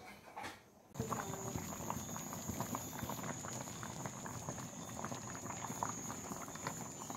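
A pot of sea whelk and beef soup boiling hard: dense bubbling and popping that starts about a second in, with a thin steady high whine alongside.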